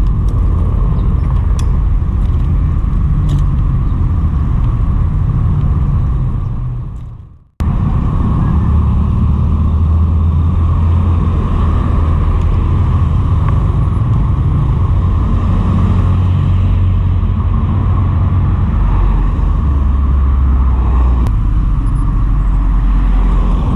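Wind rumbling over the camera's microphone while riding a bicycle, mixed with road and traffic noise. The sound fades out about seven seconds in and cuts straight back in, then runs on steadily.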